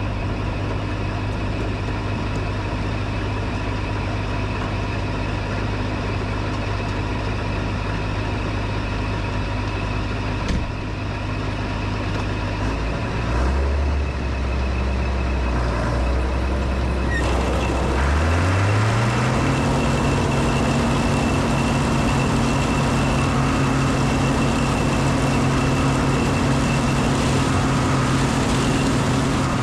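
Combine harvester's engine running steadily. About thirteen seconds in its pitch shifts down briefly, and around eighteen seconds it rises smoothly as the engine is throttled up, then holds at the higher speed.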